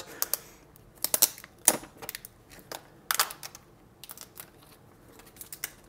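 Protective plastic film crinkling and crackling as it is peeled off a Galaxy Fold phone, a run of irregular sharp clicks and rustles.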